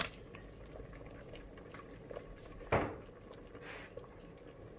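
Quiet kitchen handling as cut beef meatballs are added to a pot of rice porridge: light clicks, then one louder knock of kitchenware against the cooking pot a little under three seconds in.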